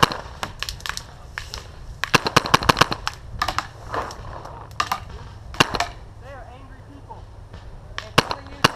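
Paintball markers firing: quick strings of sharp shots several a second, the longest about two seconds in, with single shots scattered between.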